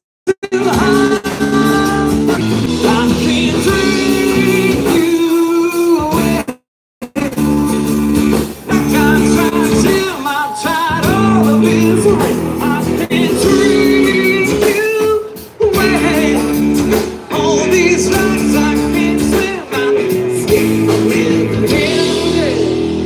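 Live rock band playing: a man singing into a microphone over electric guitars, bass and drums. The sound cuts out completely for about half a second around seven seconds in.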